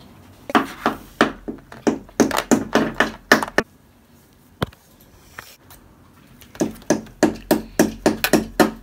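Small plastic toy figure tapping and clicking against a plastic toy playset: quick knocks, about three or four a second, in two bursts with a quieter pause and one lone click between them.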